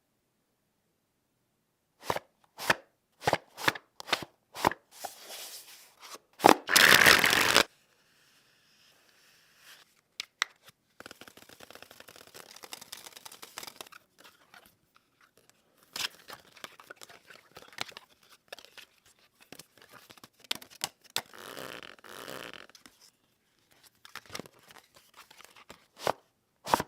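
A deck of playing cards being shuffled and handled by hand, starting about two seconds in: a run of sharp snaps and taps, one loud noisy burst of cards about seven seconds in, then longer stretches of dense, rapid clicking.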